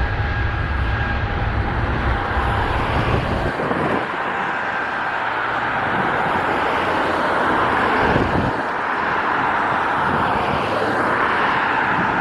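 Airbus A321neo jet engines running, a steady rushing noise. A low rumble sits under it for the first three and a half seconds, then drops away, and a faint steady whine fades out in the first two seconds or so.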